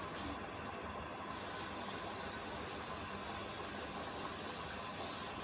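Beko WTK104121A washing machine drawing in water: a steady hiss of water through the inlet comes in about a second in, over the machine's low running noise.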